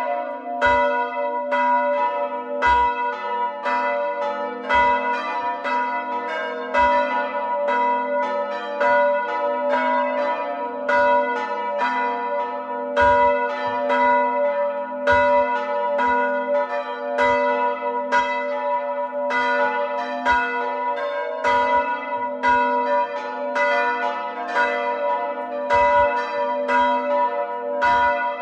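A set of four hand-rung church bells ringing continuously. The largest is an A3 (La3) bell cast by De Poli in 1921; the other three were cast by Paolo Capanni in 1951. The strikes follow one another quickly, several a second, and their ringing tones overlap.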